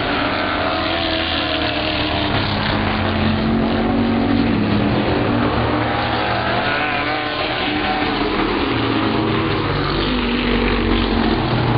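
Several street stock race cars running together on the track. The engine notes overlap and rise and fall in pitch as the pack goes through the turn and past.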